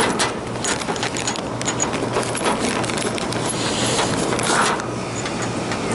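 Metal hand tools and sockets clinking and rattling in a scatter of small clicks, over a steady low hum.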